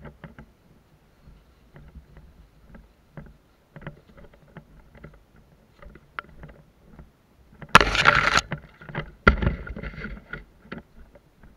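Footsteps and rustling through dry leaves and undergrowth. Two louder bursts of branches and leaves brushing close against the body come about eight and nine and a half seconds in.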